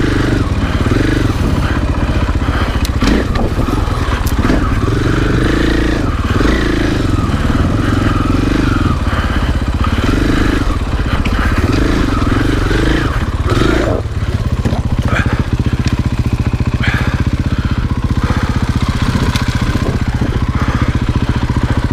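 Husqvarna FE 501 enduro motorcycle's single-cylinder four-stroke engine under way on dirt single track, its note rising and falling with the throttle, with scattered knocks and clatter from the bike over rough ground. About fourteen seconds in it settles to a steadier, slightly quieter running note.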